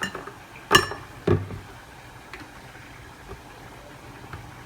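Two sharp knocks of kitchenware being handled on a counter, like a bottle or bowl set down, about a second in and half a second apart, followed by a low steady kitchen background with a few faint ticks.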